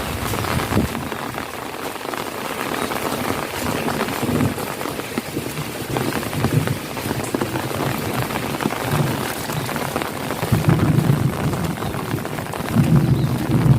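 Heavy rain pouring onto puddles and hard surfaces, a dense patter of drops. A low rumble swells up several times.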